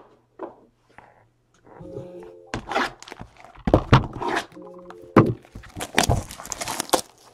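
A knife slitting the plastic wrapping on a cardboard trading-card box, with repeated knocks as the box is handled on the table and crinkling as the wrap is pulled off near the end.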